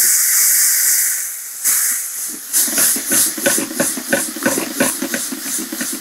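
Chopped tomatoes sizzling in hot oil with onions in a frying pan, a loud hiss that drops away after about a second and a half. Then a spatula stirring and tossing the pan, a quick run of scrapes and knocks, several a second.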